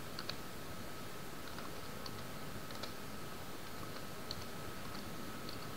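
Computer keyboard being typed on, faint keystrokes coming a few at a time at irregular intervals. Underneath is a steady background hiss with a faint, thin steady whine.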